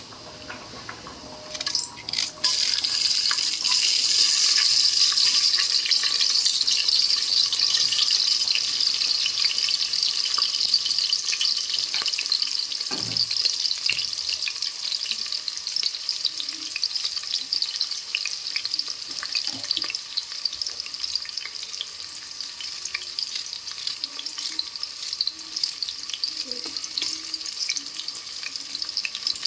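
Food sizzling in hot oil in a pan, setting off suddenly about two seconds in and slowly settling. There is a single knock about halfway through.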